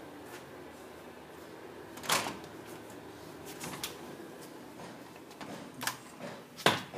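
A door being handled: sharp knocks and clunks, the loudest about two seconds in and another just before the end, with a few lighter ones between, over a faint steady background.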